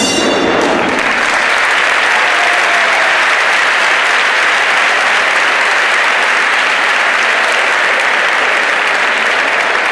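Boxing ring bell rings briefly at the very start, marking the end of the round, and the crowd then applauds steadily.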